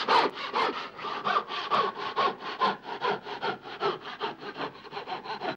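Rapid back-and-forth sawing, as of a blade cutting through wood, about four to five strokes a second and getting a little quicker, cutting off suddenly at the end.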